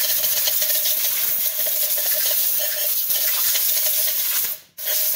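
Compressed-air blow gun blasting a loud, steady hiss into the spark plug wells, clearing dust so it cannot fall into the cylinders when the plugs come out. The air stops for a moment near the end and then starts again.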